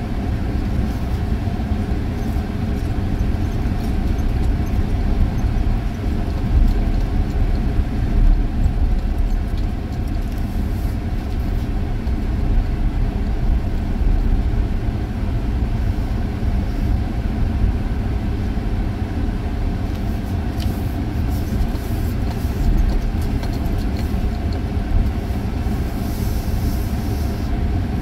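Steady engine and road noise of a moving vehicle heard from inside its cabin: a continuous low rumble.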